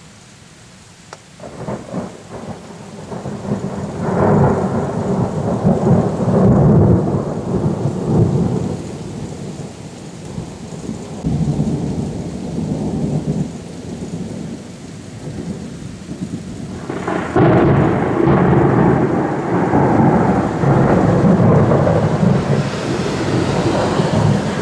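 Thunder rumbling in two long rolling peals: the first starts with crackling about a second in and builds to a deep rumble that lasts several seconds, and the second swells up again about two-thirds of the way through.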